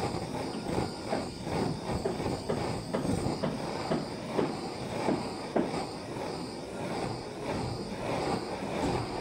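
Handheld butane torch burning as it heats a length of orange PVC electrical conduit: a rough rushing noise that surges and falls irregularly.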